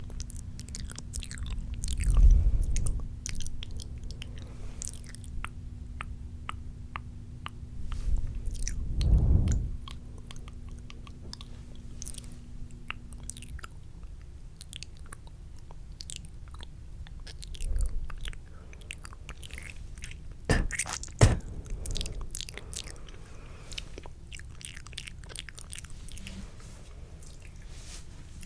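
Close-miked wet mouth sounds: a run of spitty clicks and smacks, with a few louder soft thumps against the microphone about two, nine and twenty-one seconds in.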